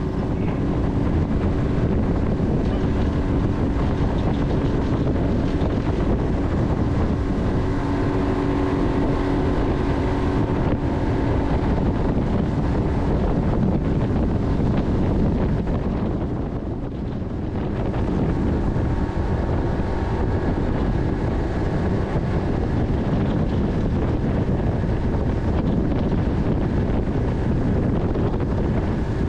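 A boat's outboard motor running steadily underway, with wind buffeting the microphone. The motor sound dips briefly a little over halfway through, then picks back up.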